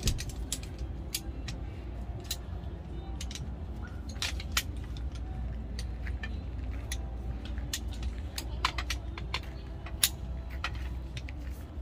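Irregular sharp clicks and clinks of small hard objects being handled, over a steady low rumble.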